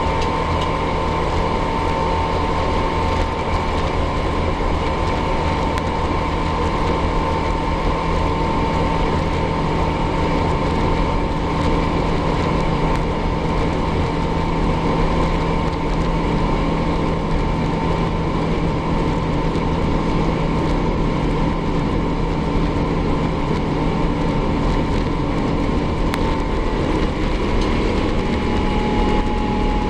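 Airbus A350-900's Rolls-Royce Trent XWB turbofan engines running steadily, heard from inside the passenger cabin as a loud rumble and hiss with a steady whine. Near the end the whine steps down slightly in pitch.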